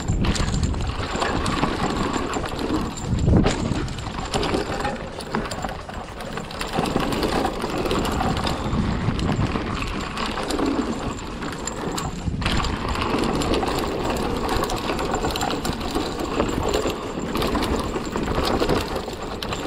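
Riding noise from a hardtail e-mountain bike on a leaf-covered dirt trail: wind rushing over the camera microphone, tyres rolling over dirt and leaves, and the bike knocking and rattling over bumps, with a louder burst about three and a half seconds in.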